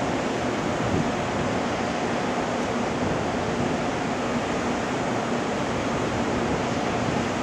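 Steady rushing noise with a faint low hum from a JR Kyushu 787-series electric train standing idle at the platform, its onboard blowers and auxiliary equipment running.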